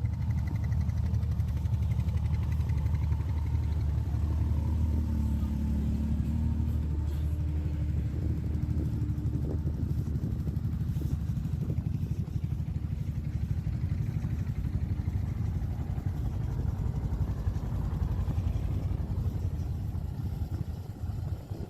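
CFMoto ZForce 950 side-by-side's V-twin engine running steadily while under way, a continuous low drone with a few faint knocks from the machine over the trail.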